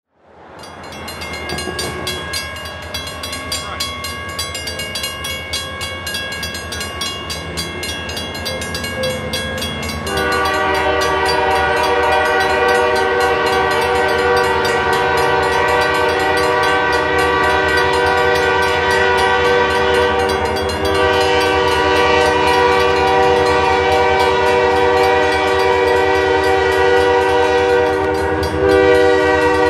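Air horn of an approaching EMD diesel locomotive sounding one long chord over the low rumble of the engines. It is faint at first and suddenly much louder about a third of the way in. It breaks briefly a little past two-thirds of the way and comes back louder near the end.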